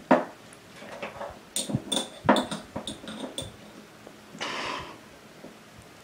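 Small glass items clinking and knocking against each other and the wooden dresser top as they are picked up and set back. A firm knock comes first, then a cluster of sharp clinks with short bright rings, and a brief rustling hiss about four and a half seconds in.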